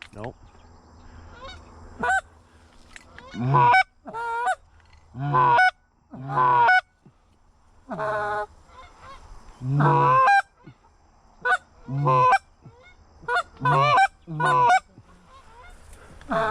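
Canada goose honks: more than a dozen loud, short calls at irregular gaps of about a second, many breaking from a low note up to a higher one.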